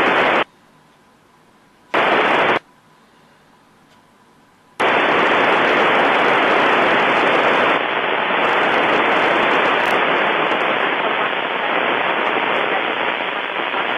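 Radio receiver static on the ISS downlink from an Icom IC-746PRO: two short bursts of hiss that cut on and off with near quiet between them, then steady loud hiss from about five seconds in with no voice.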